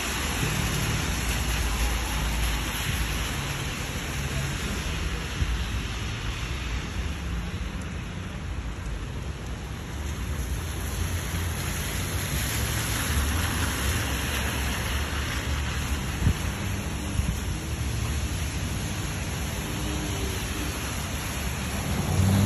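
Steady rain with traffic on a wet city street: an even hiss of rain and tyres on wet pavement over a low, uneven rumble.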